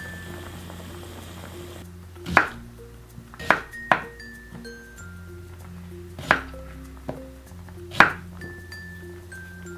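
Kitchen knife chopping through a Korean radish onto a wooden cutting board: six sharp chops at uneven intervals, one of them weaker. Before them, for about two seconds, a soft hiss of a pot of braising meat and vegetables simmering. Light background music with glockenspiel-like notes plays underneath.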